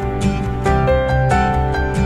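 Background music: a slow melody of separate ringing notes, each starting sharply, over a repeating low bass.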